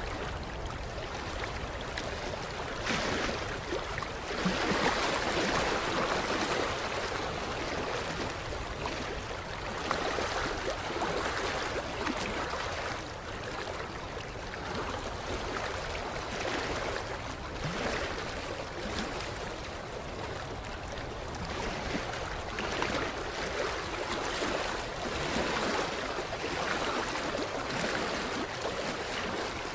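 Small waves lapping against a creek shoreline, an uneven wash of water that swells and eases every few seconds.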